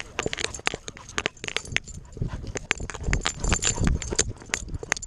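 A dog's running footfalls heard from a camera strapped to its body: a fast, irregular string of knocks and jolts as its paws strike dry leaves and dirt and the mount bumps against it.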